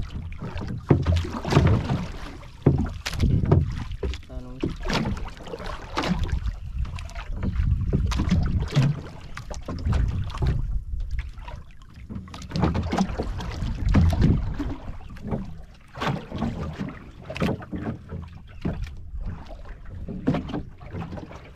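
Wind buffeting the microphone and water slapping against the hull of a small outrigger boat, in uneven gusts and splashes.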